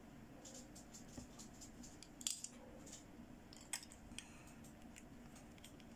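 Small plastic toy makeup pieces being handled: light, scattered clicks and taps, the sharpest about two seconds in and again near four seconds.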